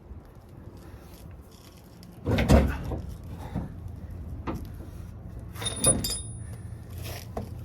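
Metal clunks and clinks of leaf spring parts and hardware being handled and set into place: a heavy knock about two seconds in, then several lighter knocks, with a brief metallic ring near six seconds in.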